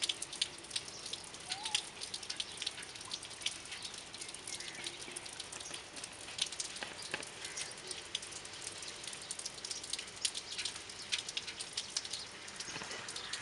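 Steady rain falling on wet paving and puddles, with many sharp drips and drops ticking close by.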